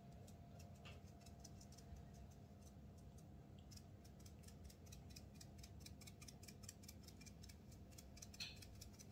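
Near silence: room tone with a faint steady hum and many faint, quick ticks.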